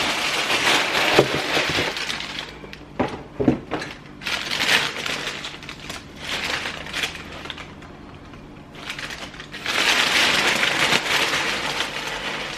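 Crinkly plastic packet of Rice Bubbles puffed rice cereal being opened and handled, with the cereal poured out, heard as several spells of rustling and crackling with a few knocks about three seconds in.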